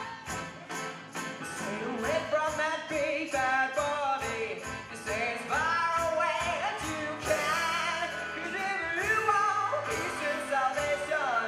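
Live band playing a song on accordion, upright double bass, keyboard and drum kit, with a steady beat. A gliding melody line comes in about two seconds in.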